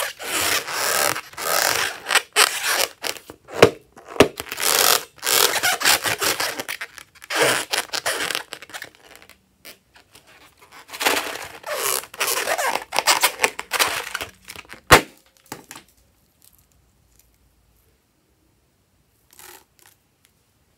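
Hands squishing and working foamy slime ingredients out of a rubber balloon into a plastic bowl: scraping, clicky handling noises in several stretches, going quiet about three quarters of the way through.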